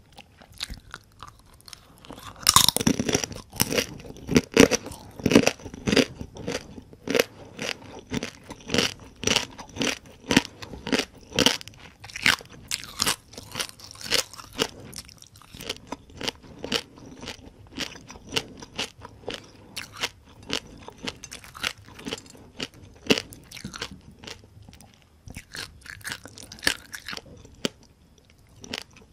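Close-miked crunching and chewing of crispy deep-fried small rice-field crabs, the shells cracking between the teeth in rapid, crisp crunches. Loudest a few seconds in, then steady chewing that thins out near the end.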